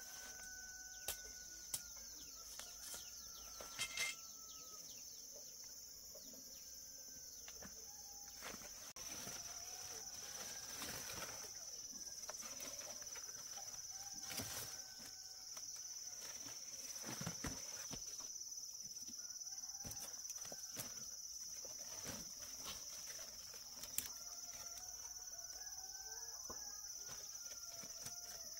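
Faint outdoor ambience: a steady high-pitched insect drone, a few short animal calls, and scattered sharp clicks and knocks, the loudest in the first few seconds.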